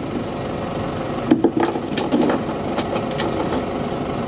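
Motor boat underway: a steady drone of engine and water, broken by scattered sharp knocks and cracks, the loudest cluster about a second and a half in.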